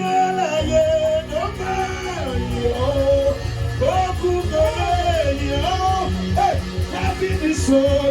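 Live gospel band music: a wavering melodic lead line over bass and drums, which come in about half a second in.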